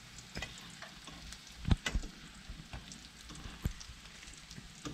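Flour-coated catfish fillets frying in hot oil in a stainless steel pan: a steady sizzle with scattered crackling pops. A metal fork pushes the fillets around, with two sharp clicks a little under two seconds in.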